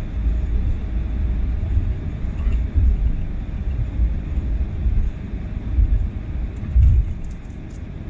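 Jet airliner's cabin noise while taxiing: a low, uneven rumble of engines and rolling wheels, with a few louder swells, the biggest near the end.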